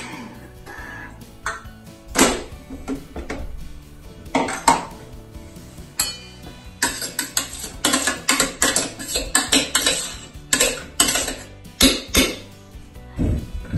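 Metal clinks and knocks: a spoon tapping and scraping against the stainless-steel bowl of a Thermomix, with a few louder single knocks early on and a quick run of taps in the second half.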